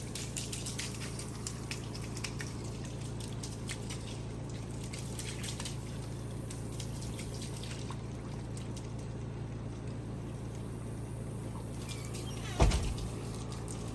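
Water running and splashing from a garden hose while a miniature horse's mane and tail are rinsed. A single sudden loud thud near the end.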